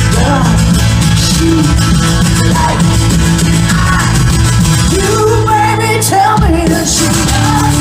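Live rock band playing loud: guitar, bass and drums, with bending melodic lines over a steady low end. The bass drops out briefly just past six seconds, then comes back.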